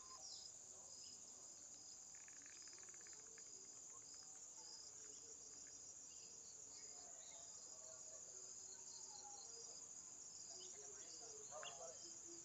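Faint, steady, high-pitched trilling of insects such as crickets, going on without a break.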